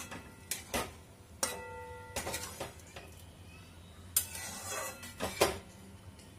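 Spatula stirring thick chana dal in a pan, knocking and scraping against the pan several times. One knock about a second and a half in rings on briefly.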